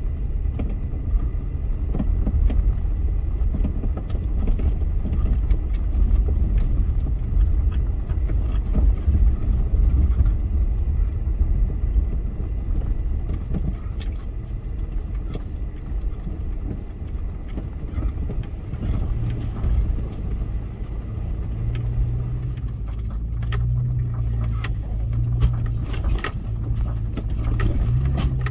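Four-wheel-drive vehicle driving over a rough dirt track: a steady low rumble of engine and tyres, with frequent knocks and clatter from stones and the suspension. In the last third the engine note swells and fades repeatedly.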